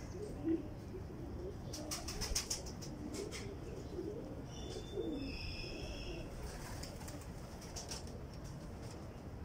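Lahore tippler pigeons cooing softly and continuously. Their wings flap in short bursts about two seconds in and again toward the end. A brief high chirp comes midway.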